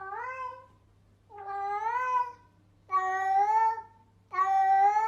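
Cat meowing: four long, drawn-out meows of much the same shape, evenly spaced about a second and a half apart.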